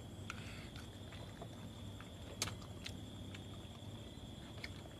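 Quiet eating sounds: scattered small clicks and smacks of mouths chewing and fingers picking at grilled rat meat, with one sharper click about halfway through. A steady high insect drone and a low hum run underneath.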